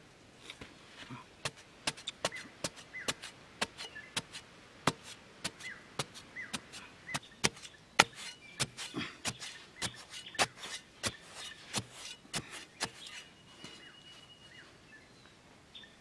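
Metal digging blade chopping repeatedly into dry, sandy soil. It gives sharp, irregular strikes, about two to three a second, that stop about three seconds before the end, leaving softer scraping.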